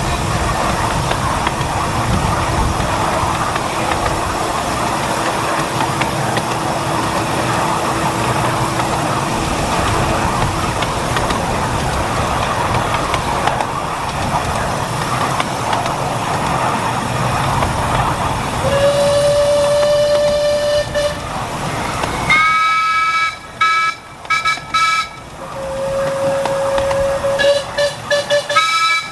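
Miniature railway train running steadily on the track, then locomotive whistles: a lower whistle held for about two seconds, a higher whistle in several short blasts, and the lower whistle again in a few blasts near the end.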